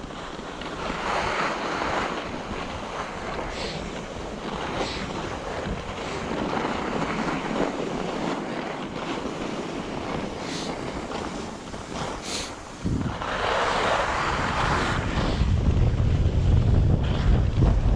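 Skis hissing and scraping over packed snow while skiing downhill, with louder scrapes about a second in and again about two-thirds through. Wind rumbles on the action camera's microphone, growing stronger in the last few seconds.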